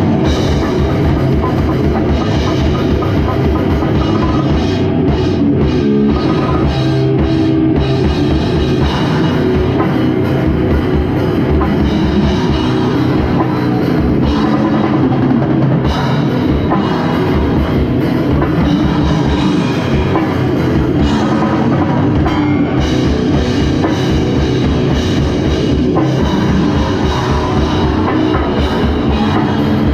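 Goregrind band playing loud heavy music live, with a drum kit driving a fast, even kick-drum pattern under dense distorted sound.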